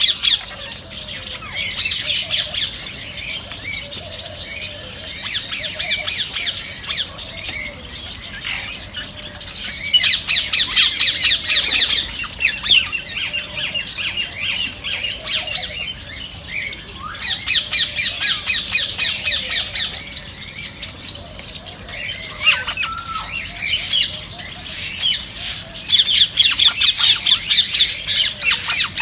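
A flock of rose-ringed (Indian ringneck) parakeets squawking: rapid runs of shrill, repeated calls that come in loud spells several times, with quieter chatter in between.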